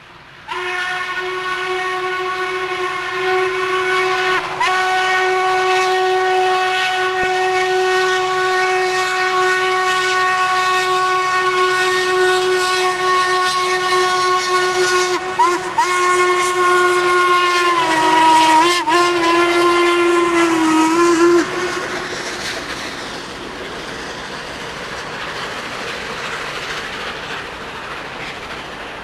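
Norfolk & Western Class A No. 1218's hooter steam whistle blowing one long blast of about twenty seconds, with a couple of brief wavers and a slight drop in pitch near the end before it cuts off. After it, the steady noise of the working 2-6-6-4 locomotive and its coal hoppers passing.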